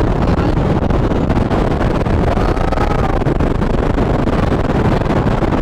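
Strong wind buffeting the microphone: a loud, steady, low rumble with no let-up.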